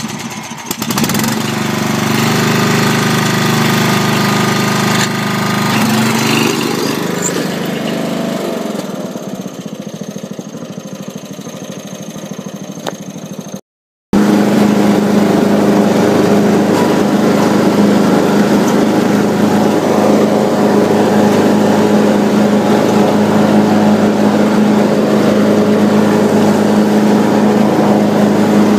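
Riding lawn mower engines running. The first runs for about fourteen seconds, fading over its second half; after a sudden break, a Craftsman riding mower's engine runs steadily with an even hum while mowing.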